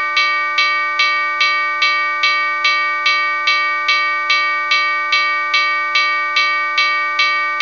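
Railroad crossing warning bell ringing steadily, about two strikes a second, each strike ringing on into the next.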